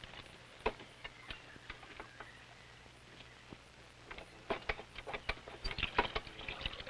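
Clinks and knocks of a hand water pump being worked and cups being filled, sparse at first, then denser and louder about four seconds in, over a faint steady low hum.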